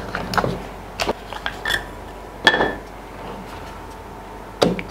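Hard plastic clicks and knocks as a Canon EOS Rebel T6 DSLR body, its caps and lenses are handled: a few sharp separate clicks, some with a brief ring, then a quick cluster of clicks near the end as a lens is fitted onto the camera's mount.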